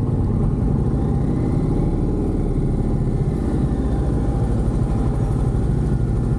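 Indian motorcycle's V-twin engine idling steadily, a close-miked, even low pulsing throb that holds without revving.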